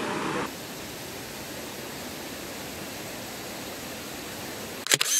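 Rushing river water, a loud, even hiss that drops abruptly about half a second in to a quieter steady hiss. Near the end a few sharp knocks sound, and then everything cuts off abruptly.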